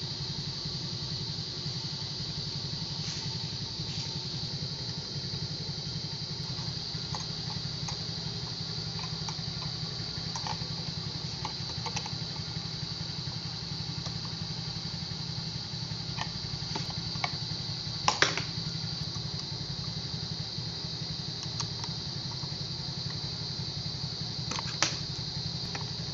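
Motorcycle engine idling steadily, with scattered sharp metallic clicks and taps from a hand tool tightening the bolts of a handlebar crossbar clamp, two louder clicks in the second half.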